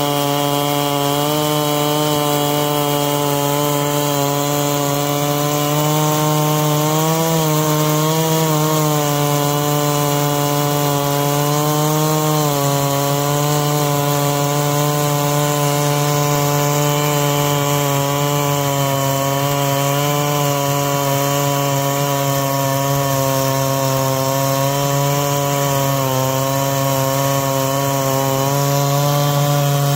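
Stihl MS660 two-stroke chainsaw running at full throttle while ripping lengthwise through a pecan log in a Norwood PortaMill PM14 chainsaw mill, its engine pitch dipping briefly a few times as the cut loads it.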